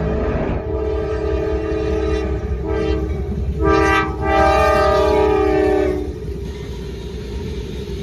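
A CSX freight diesel locomotive's multi-chime air horn sounds four blasts, long, long, short, long: the pattern sounded for a grade crossing, with the last blast the loudest as the locomotive draws close. After the horn stops, the low rumble of the locomotives and the rolling freight cars carries on.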